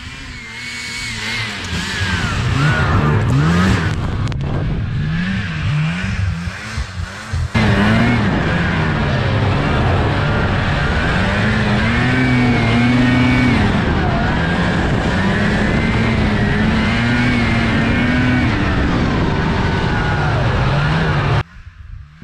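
Fan-cooled two-stroke engine of a vintage Lynx snowmobile, revving up and down over and over as it is ridden round a lap. It is first heard approaching from afar, then close up from on the sled about seven and a half seconds in, and it drops suddenly to a distant hum near the end.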